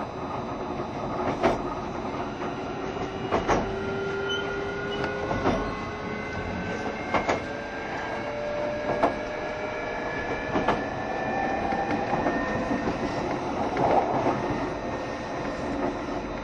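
JR Shikoku 7200 series electric train running on the line: wheels clack over rail joints about every two seconds, coming slightly closer together, under a steady running rumble. A thin electric traction-motor whine rises slowly in pitch as the train gathers speed.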